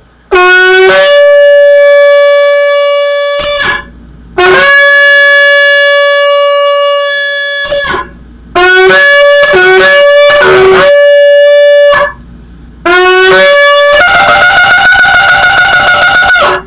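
A 39-inch shofar, its mouthpiece opened up in repair, being blown. It sounds two long blasts that each start on a lower note and jump up to a higher held note, then a run of short broken notes stepping between low and high, and a final long blast that breaks into a rapid warble near the end.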